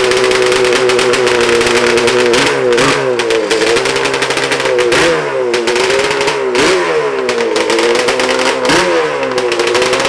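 Yamaha Banshee–based 485cc two-stroke twin drag engine with Mikuni carburetors, running on methanol, extremely loud. It holds a steady note for about two seconds, then is blipped up and dropped back again and again as the quad creeps along.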